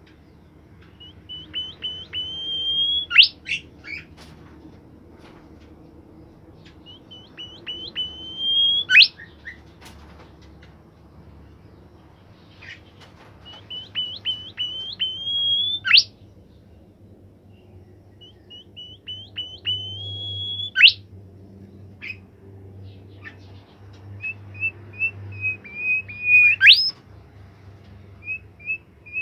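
A caged bimoli bird singing in full voice. It repeats the same short phrase about every six seconds: a quick run of clipped chirps climbing steadily in pitch, ending in a sharp sweeping note that is the loudest part of each phrase.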